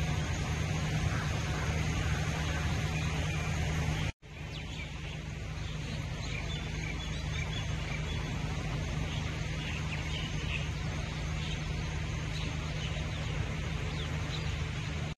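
Steady, pitchless rush of a swollen, fast-flowing river in flood. It cuts out for an instant about four seconds in, then resumes with faint high chirps over it.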